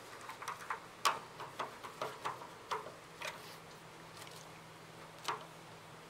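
Light, irregular clicks and taps of a copper wire being fitted under the terminal screw of an electric water heater element, mostly in the first three seconds or so, with one more a little past five seconds. A faint steady low hum runs underneath.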